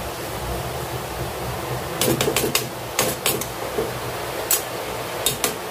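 Metal spoon clicking and scraping against a cooking pan of vermicelli: a quick run of sharp clicks starting about two seconds in, then scattered single clicks, over a steady hiss.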